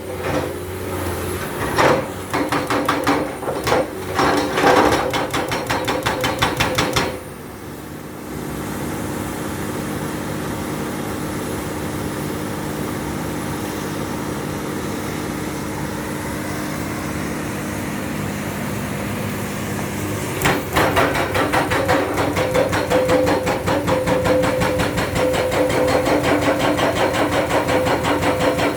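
Excavator-mounted hydraulic rock breaker hammering in rapid, evenly spaced blows. The blows stop about 7 seconds in, leaving the excavator's engine running steadily, and start again about 20 seconds in.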